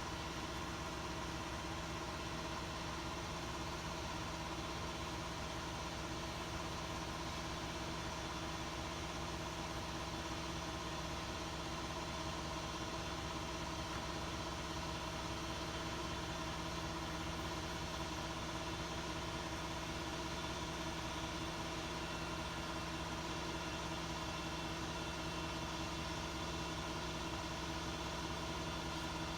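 A steady mechanical hum with several fixed pitches, holding an even level without change.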